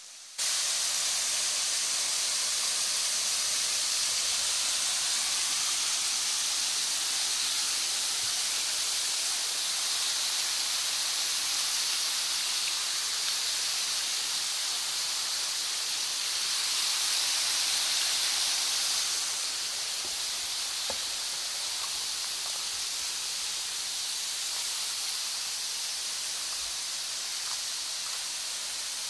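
Steady splashing rush of water from a small waterfall spilling over a stone weir into a pool, a little louder for a few seconds before easing about two-thirds of the way through.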